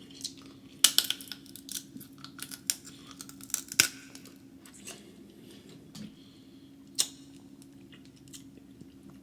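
Crab leg shell being cracked and picked apart by hand: a cluster of sharp cracks and crackles in the first four seconds, then a few single snaps.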